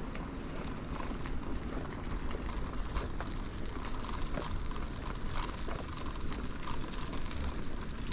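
Bicycle riding along a rough path: a steady low rumble from the tyres with frequent small clicks and rattles.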